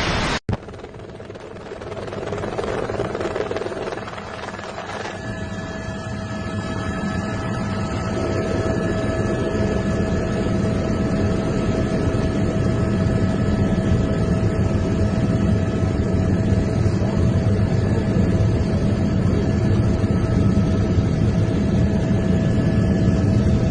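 A steady low rumble that grows louder over the first several seconds, joined about five seconds in by a constant machine-like hum.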